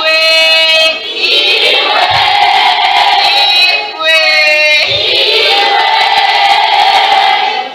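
A large group of schoolgirls singing loudly together in two phrases. Each phrase opens on held notes, near the start and again about four seconds in, and spreads into a dense mass of voices.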